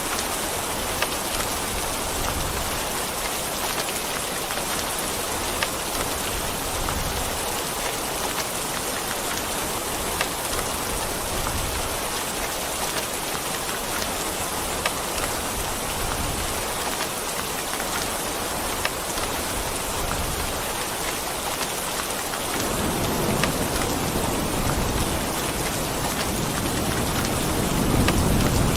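Steady heavy rain falling, an even hiss with occasional sharp drip ticks. In the last few seconds a low rumble of thunder builds up under the rain.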